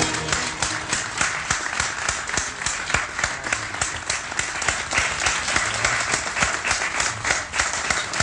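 Audience applauding: many hands clapping densely and without a break.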